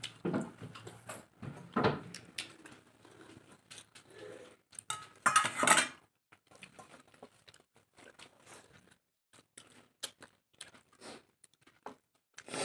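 Eating at a plate: scattered clinks and scrapes of dishes and cutlery with chewing, and a louder noisy stretch about five to six seconds in.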